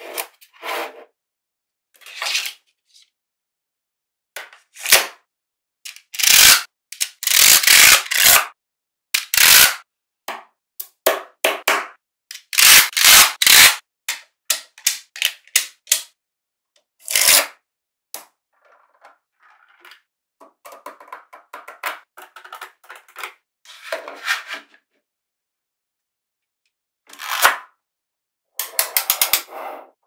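Small magnetic balls clicking and clacking together as sheets of them are handled, snapped into place and joined. The sounds come in bursts of sharp clicks and rattles with short silent pauses between them.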